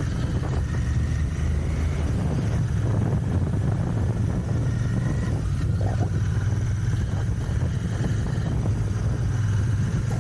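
Royal Enfield Continental GT 650's 648 cc parallel-twin engine running steadily through its stock exhausts while the bike is ridden.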